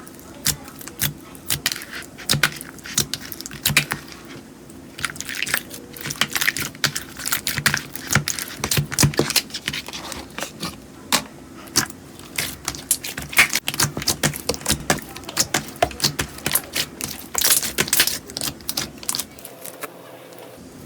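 Slime being squeezed and worked by hand, giving a dense, irregular run of sharp clicks, pops and crackles.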